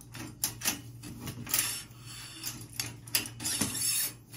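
A steel go-kart axle being slid by hand through the bearings in its rear mounting brackets: irregular metallic scrapes and clinks as it feeds through, over a steady low hum.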